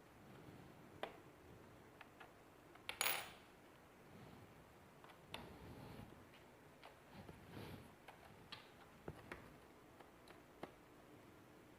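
Light clicks, taps and scrapes of a small hand tool working against a laptop's plastic case during disassembly. There is a louder, brief scraping clatter about three seconds in, then scattered single clicks.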